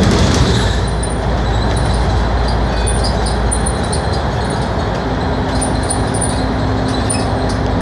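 Cabin noise of a Scania K310UD double-decker bus cruising through a road tunnel: the steady drone of its five-cylinder diesel with loud tyre and road noise, and faint high ticking rattles from fittings. A steady hum joins in about five seconds in.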